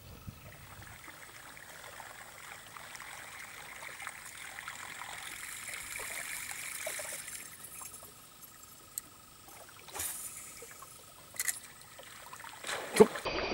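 Buzz minnow topwater lure splashing and trickling across the water surface as it is reeled in, faint and steady. A few sharp clicks come in the second half, the loudest just before the end.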